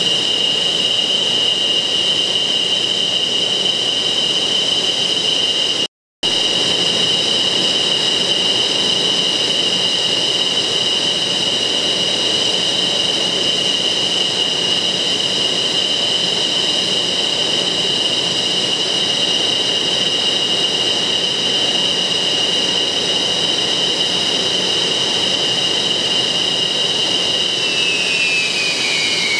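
Twin Klimov RD-33 turbofans of a MiG-29 Fulcrum running at ground idle: a steady high-pitched whine over a broad rushing noise, cutting out for a moment about six seconds in. Near the end the whine starts to fall in pitch as the engines begin to spool down.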